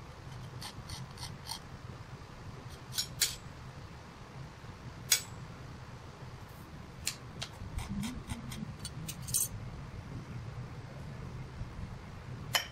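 Light metallic clicks and taps of steel marking tools, a pair of dividers and a scriber, being set against and drawn over a machined steel hub on a steel marking plate, coming singly and in short runs, the sharpest about five seconds in. A steady low hum runs underneath.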